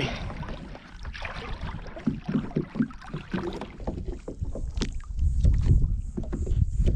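Water sloshing and knocking around a small boat, with sharp clicks and knocks. Wind rumbles on the microphone from about halfway.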